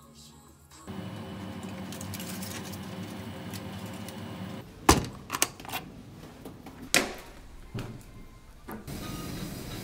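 Chicken pieces sizzling in a frying pan with a steady hiss, then several sharp knocks of sneakers dropped onto a tiled floor. The loudest knock comes about five seconds in and another about two seconds later.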